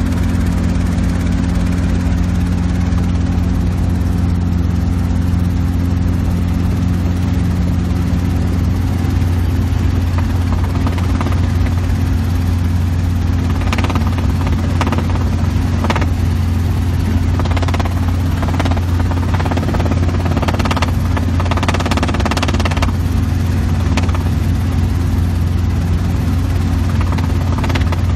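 Small helicopter's rotor and engine heard from inside the cabin: a loud, steady, low drone. One of its tones drops away about a third of the way through, and short patches of rushing noise come and go in the second half.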